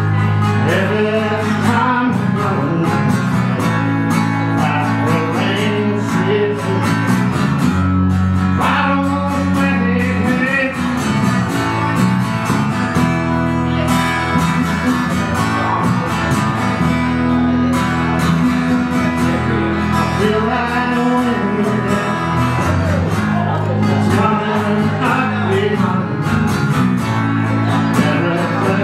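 Live acoustic music: strummed acoustic guitar over sustained low notes, with a melody line gliding above.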